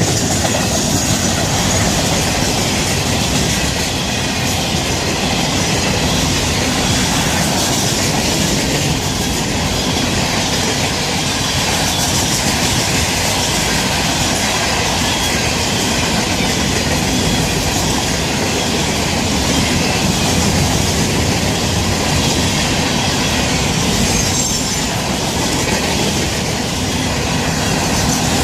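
Florida East Coast Railway mixed freight train, manifest, intermodal and tank cars, rolling steadily past. A faint high wheel squeal comes in near the start and again near the end.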